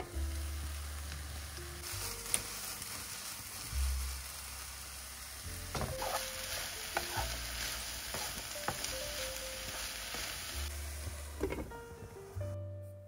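Vegetables sizzling in olive oil in a frying pan, a steady hiss that fades out near the end, with a few clicks of a utensil stirring them about halfway through.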